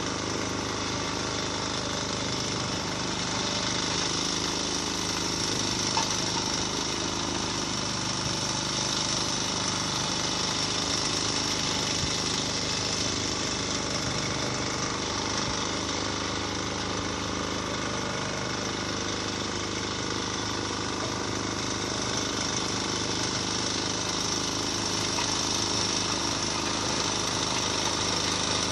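Road-repair machinery running steadily, a dense mechanical engine noise.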